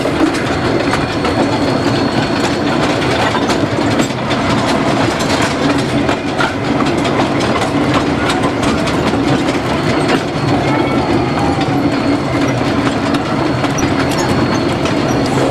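Narrow gauge train heard from a car riding in it: steel wheels clicking over rail joints over a steady rumble as the train rolls along behind the steam locomotive.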